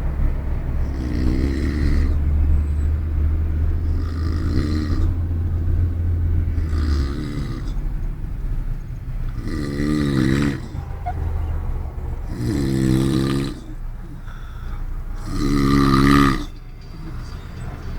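A man snoring loudly in deep sleep, with a rasping breath about every three seconds, inside a moving car. The car's low road and engine rumble runs underneath and eases about seven seconds in.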